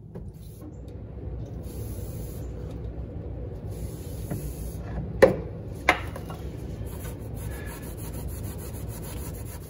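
Aerosol brake cleaner spraying in four hisses, the last the longest, onto the differential housing's gasket mating surface to degrease it, over a steady rubbing of hands and paper towel on the metal. Two sharp clicks about five and six seconds in.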